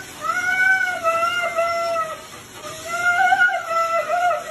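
An animal's two long, drawn-out pitched calls, each about two seconds, the second wavering in pitch.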